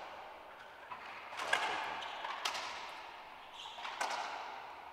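A racquetball being bounced hard on the hardwood court floor several times, about a second apart, before a serve. Each bounce echoes around the enclosed court.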